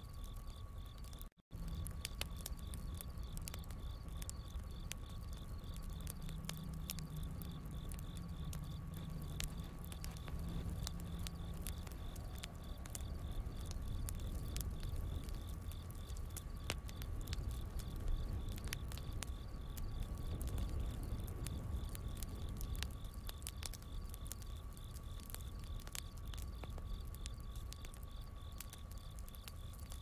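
Wood fire crackling with scattered sharp pops, over crickets chirping steadily and a low rumble. The sound cuts out for an instant about a second and a half in.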